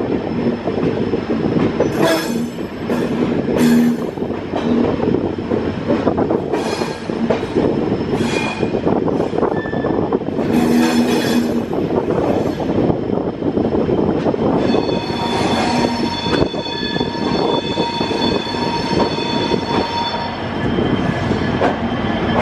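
Passenger train rolling slowly along a curved track, with a steady rumble of wheels on rail and sharp clacks over rail joints or points in the first half. From the middle until near the end, the wheel flanges squeal in several high, steady tones on the curve.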